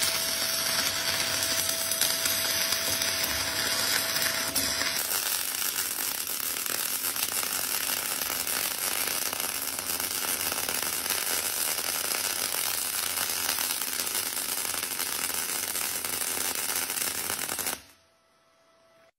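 Stick welding arc from a 4 mm electrode at 145 amps on an R-Tech MIG 181 set to stick mode: a steady, dense crackle and sizzle of the running arc, cutting off suddenly near the end.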